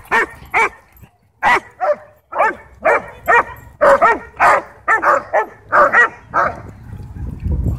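Dogs play-barking in a rapid series, about two to three sharp barks a second, with a pause after the first couple.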